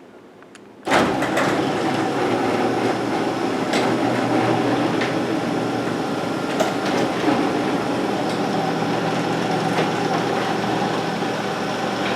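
1999 LiftMaster 1000SDR garage door opener starting up about a second in and running steadily as it lowers the door, with scattered clicks and knocks over the motor and drive noise.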